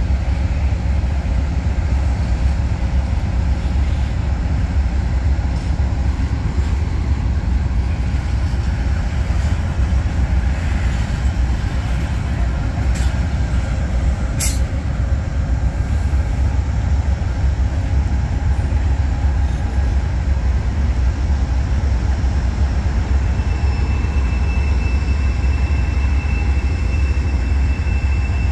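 Amtrak GE Genesis P42DC locomotive's diesel engine running steadily with the train standing still, a loud, constant low rumble. A single sharp click comes about halfway through, and a thin high whine joins near the end.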